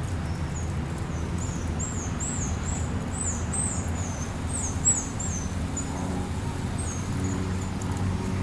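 A bird chirping: a quick run of high, swooping notes, several a second, fading out near the end. Under it a steady low rumble of background noise.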